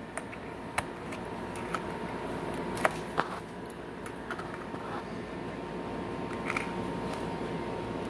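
Scattered short sharp clicks and snaps, about seven in all at irregular spacing with the loudest near the middle, as the plastic bottom cover of an Asus TP500L laptop is pried loose around its edges with a small pointed tool, over a steady low hum.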